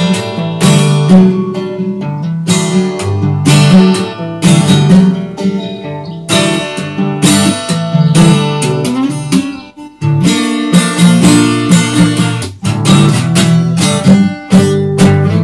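Solo steel-string acoustic guitar played fingerstyle, with two-handed tapping of notes on the fretboard and sharp, ringing plucked attacks. The playing dips to a brief near-silent pause a little past halfway, then picks up again.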